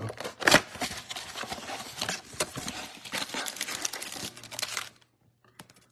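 Cardboard blaster box of trading cards being torn open and its foil card packs pulled out: a busy run of tearing and crinkling, loudest about half a second in, that stops about five seconds in.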